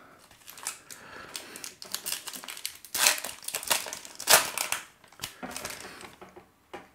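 A 2021 Topps Opening Day card pack's wrapper crinkling and its cards rustling and clicking against each other as the pack is opened in the hands. The rustles and clicks come in a quick irregular run, loudest about three and four and a half seconds in, and die away near the end.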